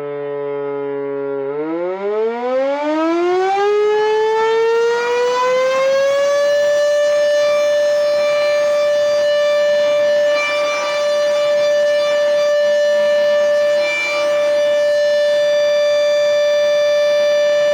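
Air raid siren being sounded as a test. Its wail climbs steadily from a low tone to full pitch over about five seconds, then holds one loud, steady tone.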